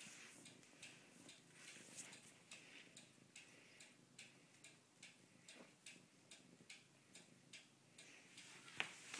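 Faint, irregular soft clicks, two or three a second, from Bengal kittens grooming and shifting about in a fabric cat bed close to the microphone, with one sharper click near the end.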